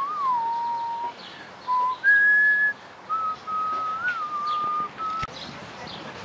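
A person whistling a slow tune: long held notes with small slides between them and short pauses. The whistling stops about five seconds in, followed by a single sharp click.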